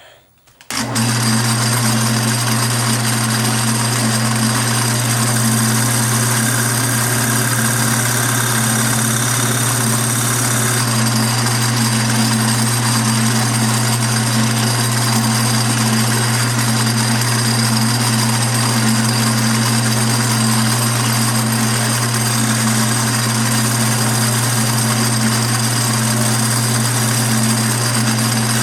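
Wood lathe switched on about a second in and running steadily, a constant motor hum with a hiss over it.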